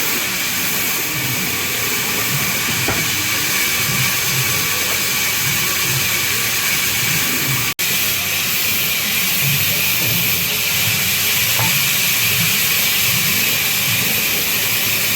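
Band saw running with a steady, loud hiss-like noise as it works babool wood. The sound cuts out for an instant about eight seconds in, then carries on.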